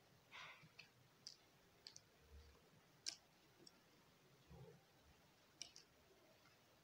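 Near silence broken by faint, scattered clicks and soft rustles of fingers handling a paper greeting card and pressing small stick-on decorations onto it. The sharpest tick comes about three seconds in.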